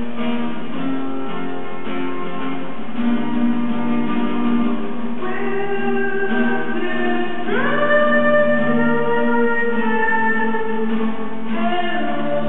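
Acoustic guitar strumming under a man's singing voice, which holds long notes and slides up into a higher one about halfway through.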